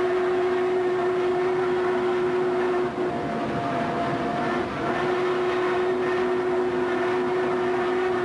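Steam locomotive whistle blowing long, steady blasts over the running noise of a moving train. The whistle breaks off about three seconds in, with a short higher note, and sounds again at about five seconds.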